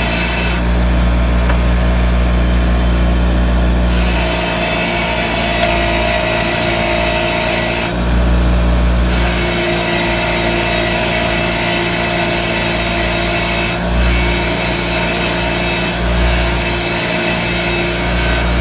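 Craftsman 6-inch bench grinder running with a wire wheel, scrubbing rust and corrosion off a brake caliper slide pin held against it: a steady motor hum under a scratchy brushing hiss. The hiss eases twice, about a second in for a few seconds and again around eight seconds.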